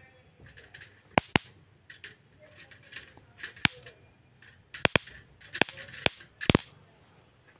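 Electric mosquito bat's charged mesh arcing to a tool held against it: about ten sharp, irregular snapping cracks, several in quick pairs. The sparking shows the repaired bat's high-voltage circuit is working.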